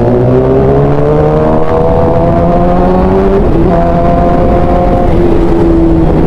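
Sport motorcycle engine pulling under hard acceleration. Its pitch rises steadily and then drops with an upshift about three and a half seconds in, and again about five seconds in, over a heavy rush of wind noise.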